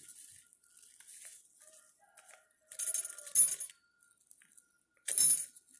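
Plastic spice packet of ground black pepper crinkling as it is shaken over a metal spoon, in two louder bursts of rustling, about three seconds in and near the end, with light rustles between.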